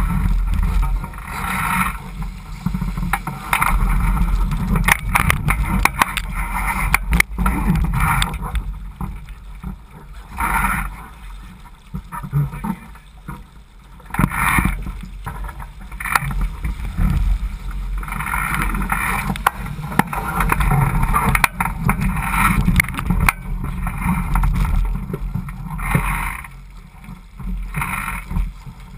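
Water rushing and splashing along the hull of a Laser 4000 sailing dinghy under way, coming in surges every few seconds over a steady low rumble. A few sharp knocks come about a quarter of the way in.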